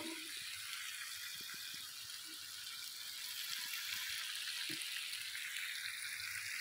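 Potato and eggplant pieces frying in oil and masala in a karahi: a steady sizzle with a few faint crackles.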